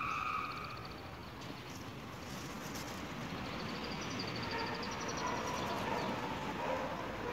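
Steady outdoor background noise with a high, rapid trill from a small bird, heard twice in the middle.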